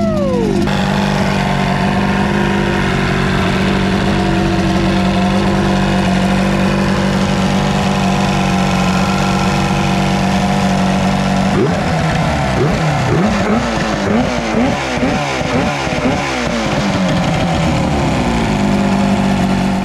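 Chrysler 100 hp two-stroke outboard running out of the water on a garden-hose flush attachment, idling steadily after a quick rev right at the start. About halfway through, the throttle is blipped over and over, the revs rising and falling several times before settling back to idle.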